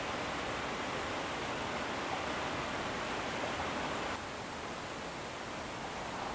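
Steady rushing of water, an even roar with no distinct splashes. About four seconds in it drops slightly in level and loses some of its hiss.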